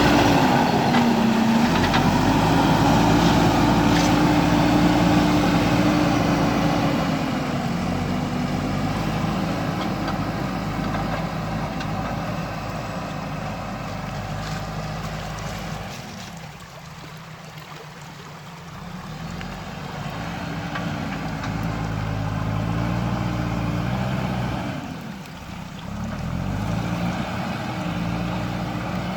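JCB backhoe loader's diesel engine working, its pitch rising and falling as it revs up and down under load. It drops to a quieter, lower note about two-thirds of the way through, then revs up again.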